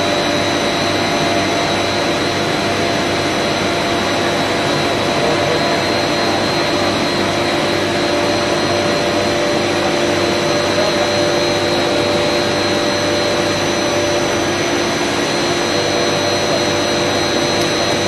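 Steady machinery noise of an ammonia refrigeration plant running: a constant mechanical rush with a high-pitched whine and lower hums over it, unchanging throughout.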